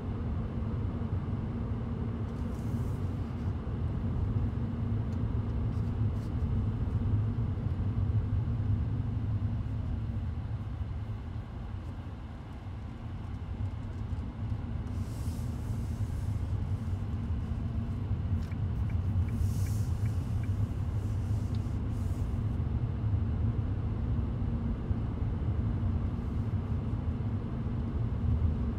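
Driving noise of a 2018 Toyota Auris on the road: a steady low rumble of engine and tyres that eases off about twelve seconds in and builds again, with a few short hissy bursts over it.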